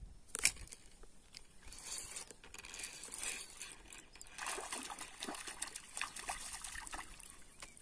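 Faint small water splashes and trickling as a frog bait is worked on the surface of a reservoir and a fish swirls at it later on; a sharp knock about half a second in.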